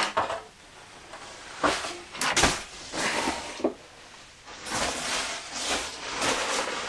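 Knocks and clunks of things being handled, with a heavier thump about two and a half seconds in, then a stretch of rustling and scraping as camping gear is moved about on wooden shelves.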